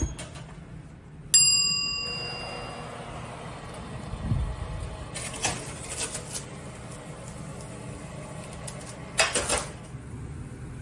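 Viking oven and baking sheet being handled: a sharp metallic clang that rings for about a second near the start, a dull thump midway, then light clicks and a short metal rattle near the end as the sheet pan is slid out over the oven rack.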